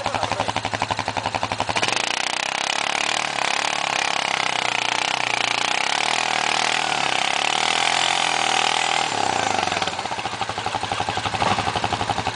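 Quad engine idling, then held at high revs under load for about eight seconds, with a steady whine and a rough noise of tyres spinning and churning through deep snow as the stuck quad is pulled out on a tow line. It drops back to a pulsing idle about ten seconds in.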